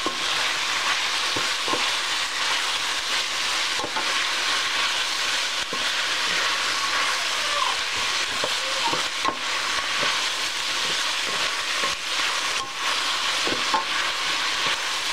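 Beef and snow pea stir-fry sizzling steadily in a stainless steel skillet while a wooden spatula stirs it, with scattered clicks and scrapes of the spatula against the pan.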